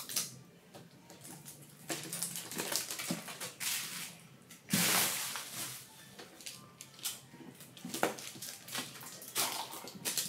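Cardboard phone box and its plastic seal being handled and opened: rustling, crinkling and small knocks of packaging, loudest in a rustle about five seconds in.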